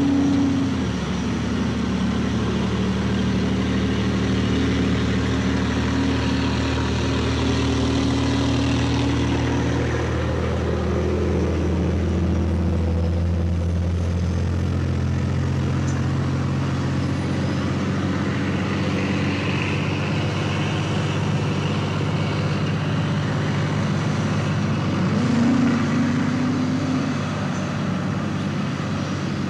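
Heavy diesel engines of earthmoving machinery, a large wheel loader working close by among dump trucks, running steadily. About 25 seconds in, an engine revs up briefly, rising in pitch and loudness.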